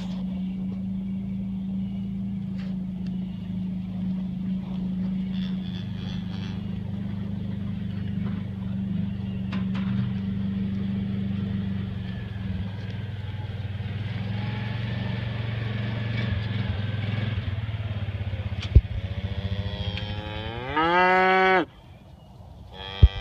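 Cattle mooing and lowing in a long, steady low drone, with a louder moo rising sharply in pitch near the end that cuts off suddenly.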